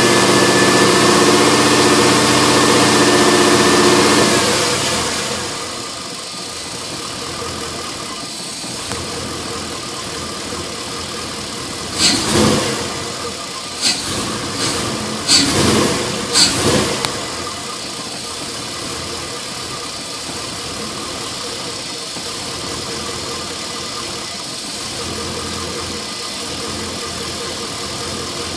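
LS1 5.7-litre V8 running, held a little higher and louder for the first few seconds before it drops back to a steady idle: the rough idle the owner traced to a fitting left open after the AIR/EGR delete. Several sharp knocks come in a cluster around the middle.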